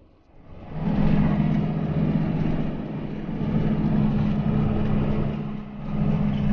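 A vehicle engine running steadily, coming in sharply about a second in with a constant low hum.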